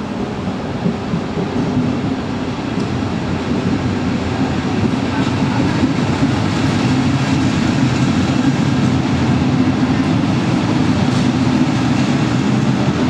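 Double-deck regional passenger train rolling past along the platform, with a steady rumble of wheels on rail that grows louder as the coaches go by.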